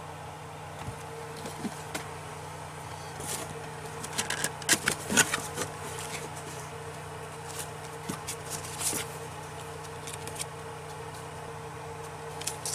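Cardboard box and paper packaging being handled: scattered rustles and light knocks, busiest around the middle, as a certificate and a paper manual are taken out of the box. A steady low hum runs underneath.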